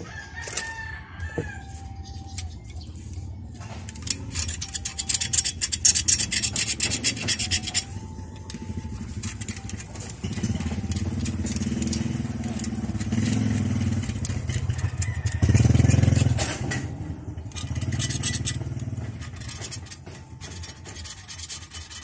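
A flat blade scraping particles off the CRT picture tube around the anode cap in rapid strokes, cleaning away the dirt that let the high voltage arc. A rooster crows in the background, and a low rumble builds through the middle, loudest about two-thirds of the way in.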